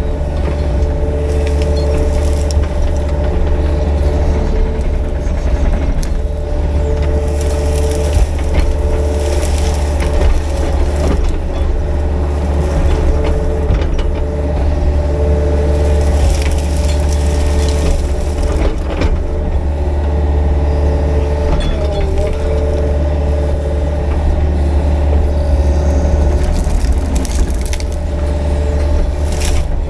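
Excavator's diesel engine running steadily under working load, with scattered clanks and cracks from the rake attachment tearing through brush and fence.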